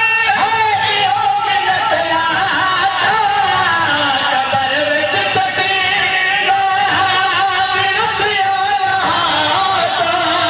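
A man's voice singing a melodic, drawn-out recitation with long held notes, in the chanted style a zakir uses at a majlis, amplified through a sound system.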